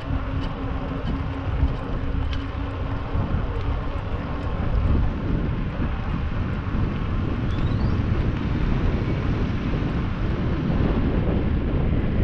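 Outdoor noise dominated by a steady low rumble, with a faint steady hum that stops about four and a half seconds in.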